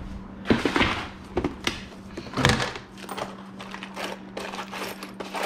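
Rummaging through a container of loose small hardware such as washers and screws: irregular clicks, clinks and rattles, loudest about half a second in and again about two and a half seconds in.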